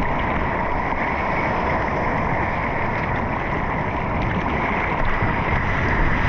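Steady rush of sea water and wind buffeting on a helmet-mounted GoPro as a surfer paddles through small waves.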